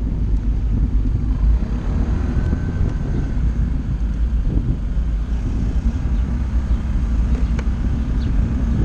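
Honda SH 125i scooter under way: a steady low rumble of wind buffeting the mounted camera's microphone over the scooter's single-cylinder engine running.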